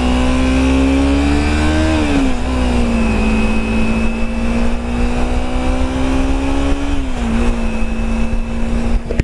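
Kawasaki Ninja 300 parallel-twin engine running under way, heard through a helmet mic with wind rush. Its pitch climbs gradually and drops back quickly twice, about two seconds in and again about seven seconds in.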